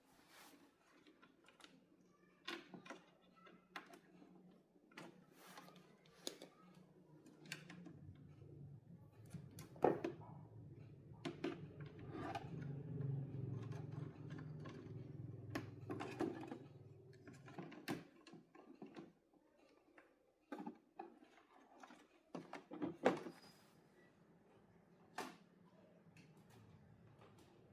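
Scattered light clicks and knocks from small hard objects being handled, with a low hum under them for about ten seconds in the middle.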